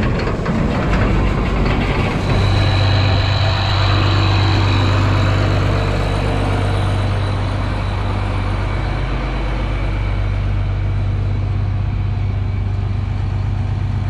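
Tractor engine running steadily with a deep, even hum, a thin high whine joining in for a few seconds about two seconds in.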